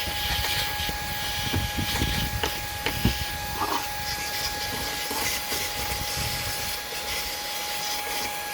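Shark IZ251 cordless vacuum running steadily with a high whine and airy hiss as it sucks dust off dashboard buttons and switches, with a few small knocks as the nozzle brushes against them.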